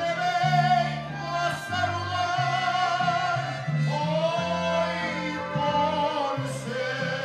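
A man singing a Mexican song into a microphone, holding long notes, over live-style backing music with a steady stepping bass line.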